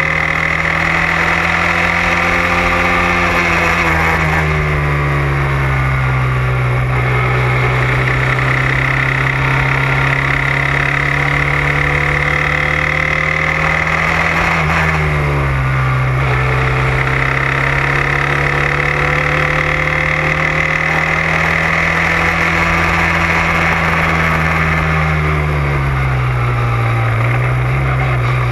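Onboard sound of an open-wheel single-seater race car's engine at racing speed. The pitch climbs slowly as it pulls, then drops sharply about four seconds in, again about fifteen seconds in, and near the end as the car slows for corners.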